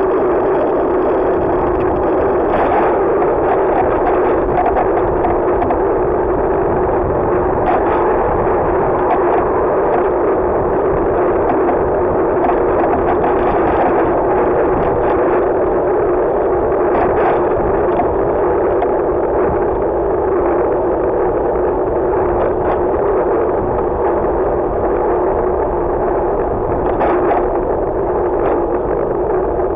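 Steady rushing wind and road noise picked up by a bicycle-mounted camera while riding along a city cycle lane, with a few brief knocks from bumps in the road.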